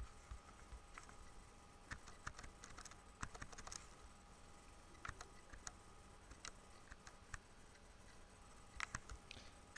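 Faint, irregular clicking of computer keys and mouse buttons. There are small quick clusters about two to four seconds in and again near the end, over a faint steady hum.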